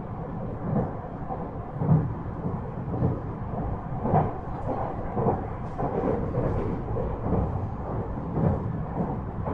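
Inside a JR West 223 series 5000 electric multiple unit running at speed: a steady low rumble with a regular thud about once a second as the wheels pass over rail joints.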